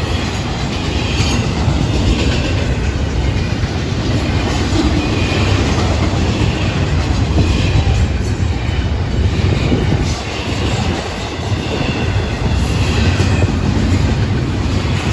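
Florida East Coast Railway intermodal freight train rolling past: a steady loud rumble of steel wheels on rail, with clickety-clack over the rail joints and a faint wheel squeal.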